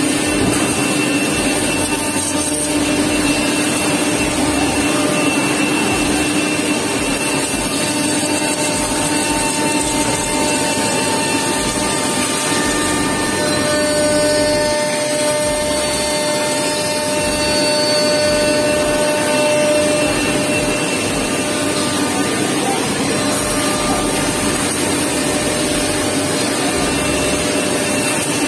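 Chang Feng five-axis CNC router milling a curved wooden block: the spindle runs steadily with cutting noise as the tilting head moves around the piece. It carries several steady whining tones that change pitch about halfway through.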